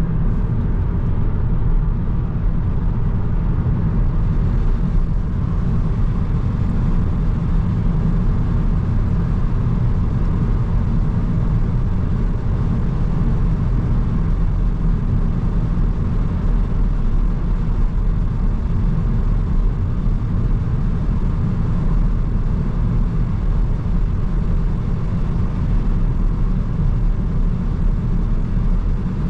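A 2020 Seat Ibiza 1.0 TSI, a three-cylinder turbo petrol, driving at a steady pace, heard from the driver's seat: a constant low rumble of engine and road noise with no revving or gear changes.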